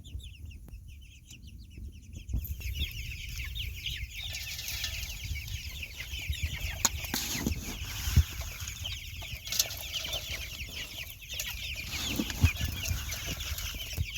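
A brood of young meat-bird chicks peeping nonstop, a dense chorus of short, high, falling chirps that swells and gets louder about two seconds in. A few sharp knocks sound through it.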